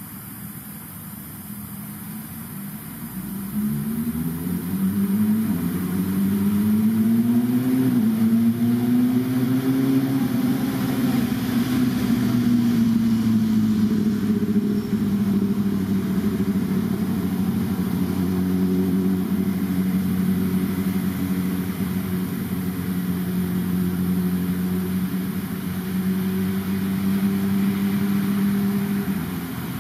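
An engine running: its pitch climbs for several seconds, then eases down to a steady drone, which cuts off near the end.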